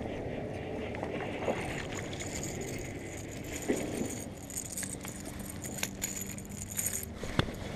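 Handling noise from a baitcasting rod and reel while a hooked bass is reeled in and swung up onto a grass bank: a steady low rustle with a few soft knocks.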